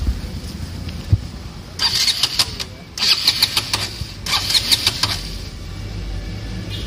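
KTM Duke 200's single-cylinder engine idling with a steady low hum. Over it come three bursts of crackly rubbing noise, about two, three and four and a half seconds in.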